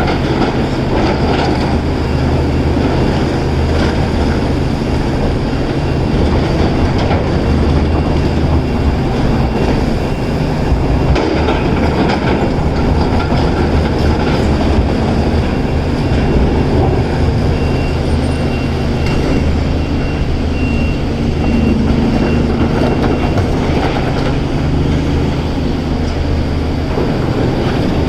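Caterpillar 336 excavator working: its diesel engine and hydraulics run steadily and loudly under a dense rattling rumble, with a thin high squeal about two-thirds of the way through.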